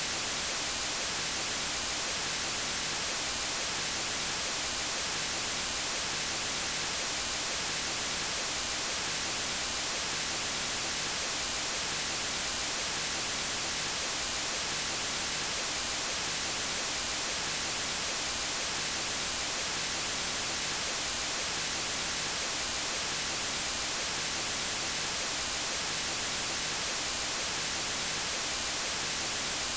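Steady white noise: a constant, even hiss with no change in level, strongest in the high range.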